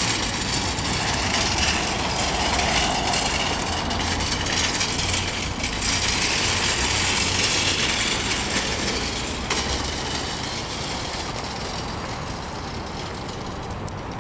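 Metal shopping cart rattling and clattering as it is pushed at a brisk pace over rough asphalt, its wheels and wire basket jangling, fading toward the end as it rolls away.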